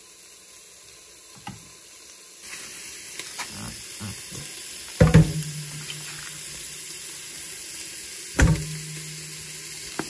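Kitchen tap turned on about two and a half seconds in and running steadily into the sink while raw chicken is washed. Two loud clunks, about halfway and near the end, each with a short low hum after it.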